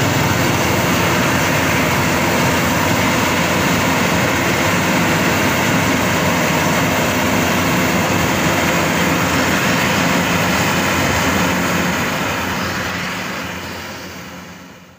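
Bimo 102 rice combine harvester running steadily under load as it cuts and threshes standing rice, a dense mechanical din of engine and machinery; the sound fades out near the end.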